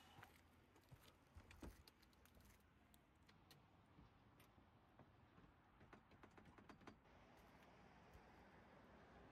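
Near silence, with faint scattered clicks and ticks and a quick run of them about six to seven seconds in.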